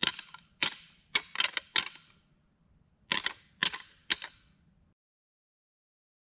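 A run of about nine sharp clicks or knocks in irregular groups, three or four close together and then a few more after a short pause, before the sound cuts out to dead silence near the end.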